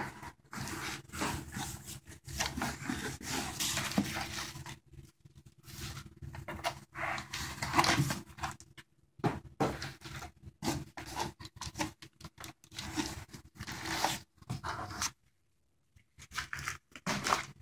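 Corrugated cardboard shipping box being handled: flaps folded back and inner packing pulled out, in irregular rustles and scrapes of cardboard. The handling stops for about a second near the end.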